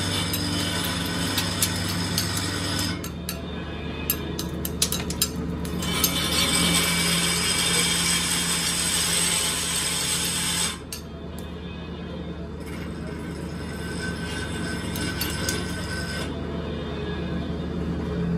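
Workshop machinery running steadily with a low hum. The sound drops suddenly about three seconds in, comes back louder about six seconds in, and drops again near eleven seconds, with a few sharp clicks in between.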